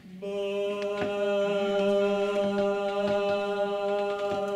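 Men's barbershop chorus singing one long held chord on the word "my", a cappella, as a breath-support drill. The lowest part sounds first and the rest join about a quarter second in, then the chord holds steady as a stack of ringing overtones.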